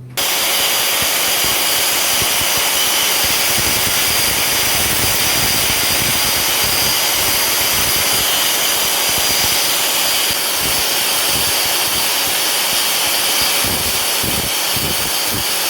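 Angle grinder fitted with a belt sander attachment running steadily, an even hiss that is strongest in the high range. It drops slightly in level about ten seconds in.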